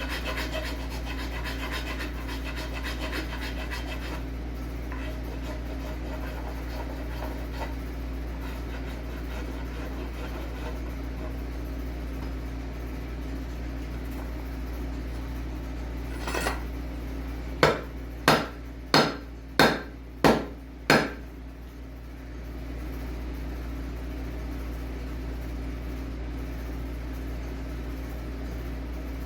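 Six quick hammer strikes, about two-thirds of a second apart, each ringing briefly. Before them come a few seconds of rasping strokes on wood.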